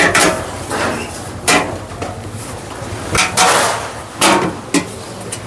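Metal parts and tools being handled on a hybrid battery pack: about five sharp clanks and knocks, irregularly spaced, over steady workshop background noise.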